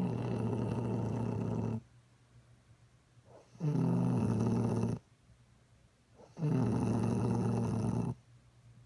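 Snoring: three long, loud snores, each lasting a second and a half or more, with quiet gaps of about two seconds between them as the sleeper breathes in and out.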